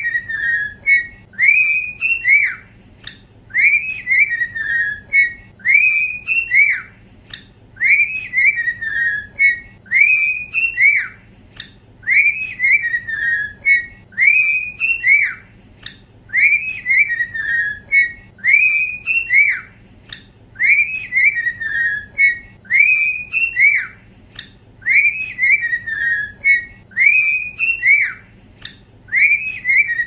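Two cockatiels whistling a duet: a short phrase of clear rising-and-falling whistled notes with a quick falling run of notes in the middle, repeated about every four seconds.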